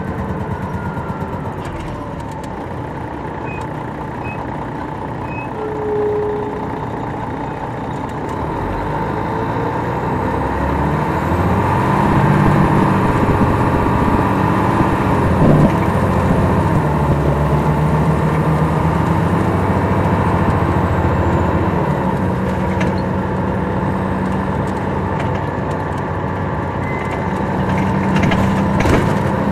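Detroit Diesel Series 60 engine of a 2002 MCI D4000 coach heard from inside the cabin at the back of the bus. The engine note grows louder and rises in pitch about ten seconds in as the bus accelerates, with a single sharp knock midway, then runs steadily under way.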